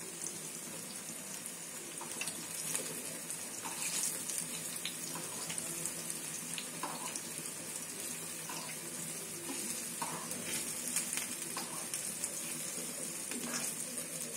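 Tilapia fillet strips shallow-frying in sesame oil on a flat tawa: a steady sizzle with scattered small crackles and pops. Hot oil is being spooned over the pieces.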